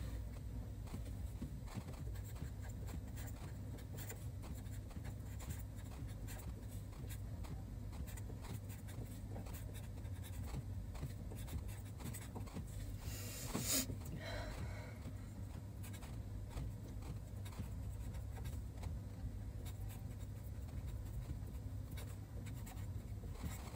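Felt-tip marker pen writing Chinese characters on paper: soft scratching strokes over a steady low hum, with one short, louder noise about halfway through.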